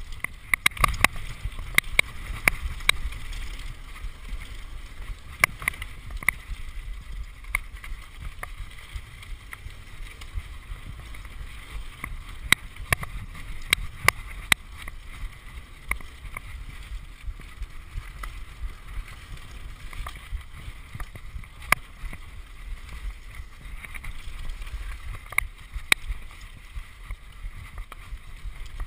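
Mountain bike rolling fast down a rough gravel trail: a steady low rumble from the tyres and wind, with frequent sharp clicks and rattles as the bike jolts over the ground. Heard from a GoPro on the rider's chest.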